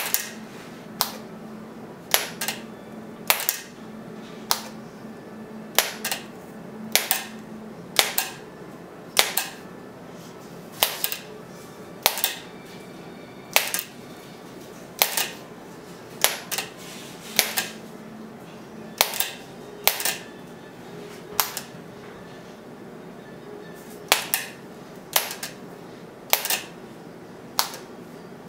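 Keys of a manual typewriter-style iPad keyboard being struck one at a time: sharp mechanical clacks at an uneven pace of roughly one a second.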